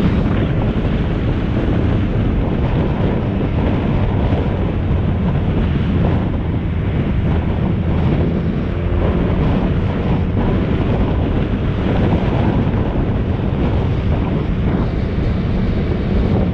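Heavy wind buffeting on the microphone of a camera riding a moving vehicle, over a steady low engine hum.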